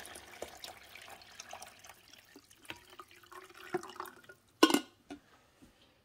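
Water pouring from a glass carafe into a coffee maker's water reservoir, splashing and trickling and tapering off. A single short knock sounds near the end.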